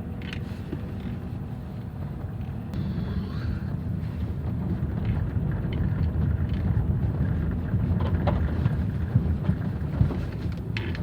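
Chevrolet Aveo driving slowly over an uneven road: a steady low rumble of road and engine noise that grows a little louder a few seconds in, with a few short light knocks in the second half.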